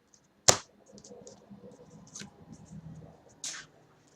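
Trading cards being handled and flipped through: a sharp click about half a second in, soft rustling, then a short scrape of card sliding on card near the end.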